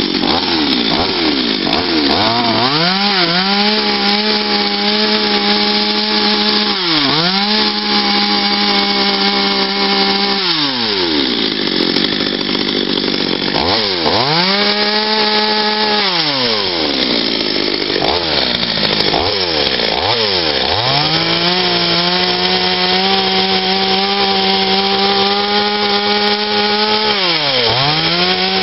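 Patriot two-stroke petrol chainsaw cutting into wood while carving. It is opened up to full throttle in four long runs of several seconds each, and the engine pitch rises, holds high and falls back between them.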